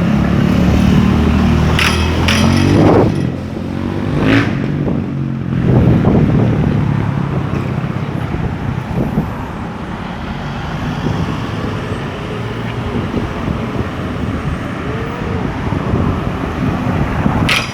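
Street traffic. A motor vehicle's engine runs close by for the first few seconds, its pitch rising around three seconds in as it pulls away. Steady road and street noise follows, with a few sharp knocks.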